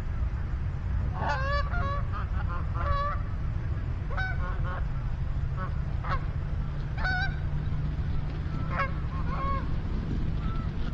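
Goose honks and clucks, a string of short calls every second or so, some in quick runs, over a steady low rumble.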